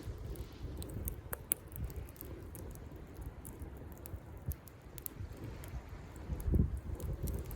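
Wood campfire crackling, with many small sharp pops and snaps scattered throughout over a steady low rumble that swells briefly about six and a half seconds in.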